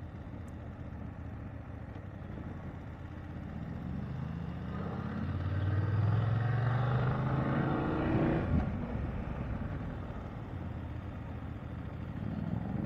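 BMW F 750 GS parallel-twin engine heard from the saddle, rising in pitch and loudness under acceleration for about four seconds, then dropping sharply at a shift up into third gear, over wind and road noise. It begins climbing again near the end.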